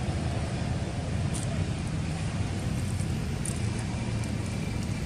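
Steady low rumble of outdoor background noise, with a couple of faint light ticks.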